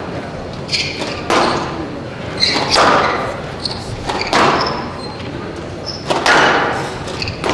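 Squash rally: the ball cracks off racquets and the walls about every second and a half, each shot echoing in the hall, with short shoe squeaks on the wooden court floor between shots.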